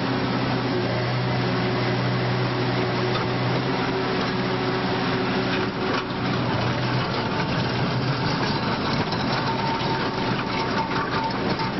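Vintage electric streetcar running along street track: a steady low hum with clicks from the running gear partway through and again near the end.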